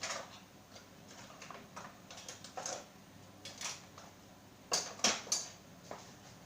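Light clicks and taps of kitchen utensils and small kutsinta molds being handled, with a quick run of three sharper clacks about five seconds in.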